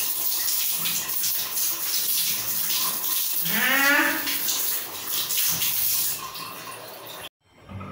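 A jet of water spraying hard onto a wet cat in a tiled shower, with one drawn-out yowl from the cat about halfway through. The spray stops about three-quarters of the way in, and the sound cuts off suddenly near the end.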